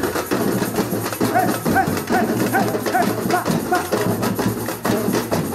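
Batucada samba percussion ensemble of women drummers playing a dense, steady groove. Over the drums, a short rising-and-falling pitched note repeats about twice a second through the middle.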